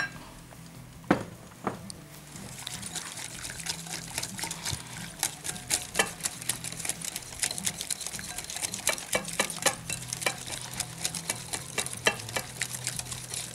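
Metal wire whisk beating a thin gram-flour and spice batter in a cut-glass bowl. Two sharp clinks come in the first two seconds, then a fast, irregular ticking of the wires against the glass.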